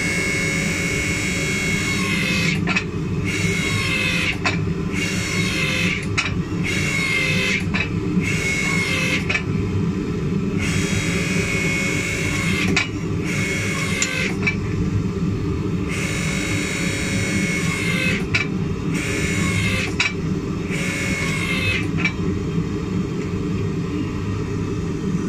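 Electric log splitter converted to a forging press: its motor and hydraulic pump run with a steady low hum throughout, while a higher whine rises and drops away again and again in stretches of a second or two as the ram squeezes hot steel between the dies.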